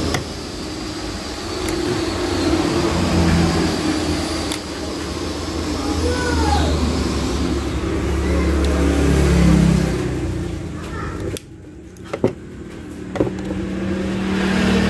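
A motor engine running steadily with a low rumble, which drops away suddenly about eleven seconds in. A few sharp clicks follow near the end.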